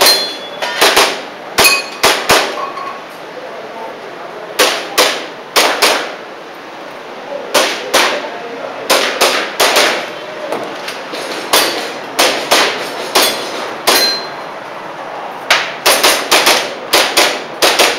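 Airsoft pistol firing in quick strings and pairs of shots, with sharp metallic clangs of BBs hitting steel targets, some of them briefly ringing.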